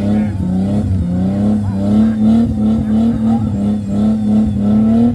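A Jeep's engine revving hard in deep mud, held high with its pitch rising and dipping a little.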